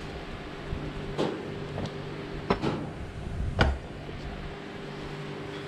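A few short knocks and clunks of metal motor parts being handled and set down on a workbench, the loudest about three and a half seconds in, over a steady background hum.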